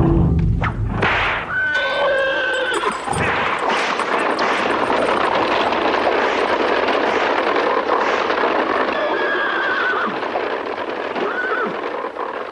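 Horses whinnying, the first about two seconds in and again twice in the later part, over a dense continuous clatter, with a sudden loud thud at the start.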